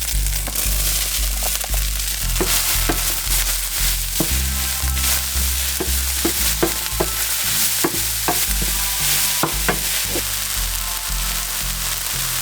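Chopped bell peppers and jalapeños sizzling in a hot frying pan as they are stirred, with short ticks of the utensil against the pan. A low stepping bass line of background music runs underneath.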